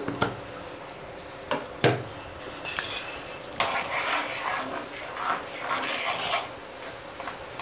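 Steel kitchen utensils knocking and clinking a few times, then a few seconds of scraping from a spoon worked in a pan of instant noodles.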